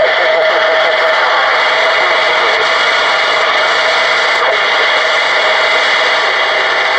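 A Connex CB radio's receiver putting out loud, steady static hiss through its speaker, with a steady whistle-like tone in it, while its channel selector is turned across channels.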